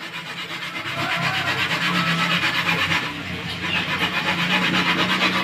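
Motorised coconut grating machine running, rasping steadily over a low motor hum as coconut is grated.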